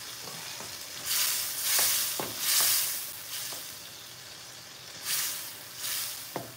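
Food in a sauce sizzling in a frying pan while being stirred with a wooden spoon, the hiss swelling in surges as it is turned, with a few light knocks of the spoon against the pan.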